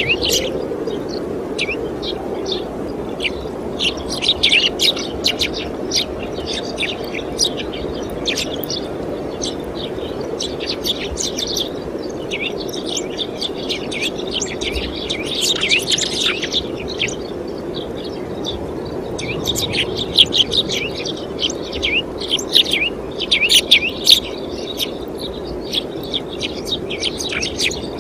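Many small birds chirping and twittering in quick, overlapping bursts, busiest around a few clusters, over a steady low background rush.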